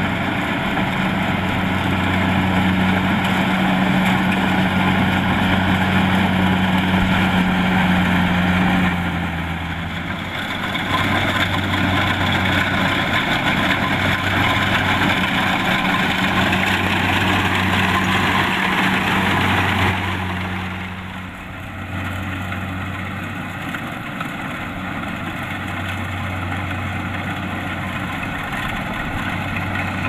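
Kubota DC-70 Plus rice combine harvester running as it cuts the crop: a steady engine drone with mechanical clatter over it. The sound dips briefly about ten seconds in, then turns quieter and duller from about twenty-one seconds in.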